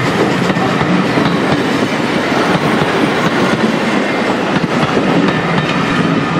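Passenger carriages of a steam-hauled vintage train rolling past at speed: a steady rumble with the wheels clicking over the rail joints.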